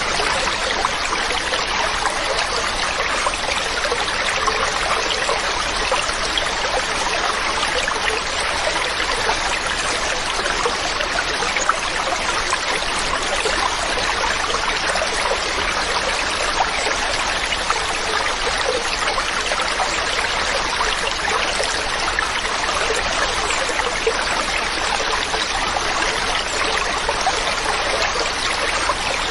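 Mountain stream running steadily over rocks, a constant rushing and trickling of water.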